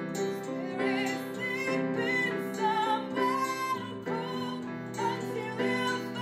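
A woman singing a slow melody with vibrato on the held high notes, over acoustic guitar accompaniment.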